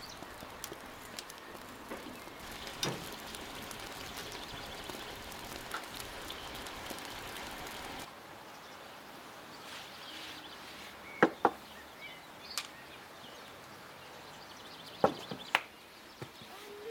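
Hands-on cooking sounds: a steady hiss with light clicks from a utensil worked in a pan on a wood stove, then, after a cut, sharp knocks in two pairs as an enamel bowl of dough is handled and tipped onto a wooden table.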